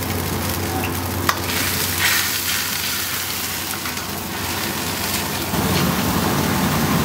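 Sauce sizzling in a hot wok as a metal ladle stirs it, with one sharp clink about a second in. The sound grows a little louder and fuller about five seconds in.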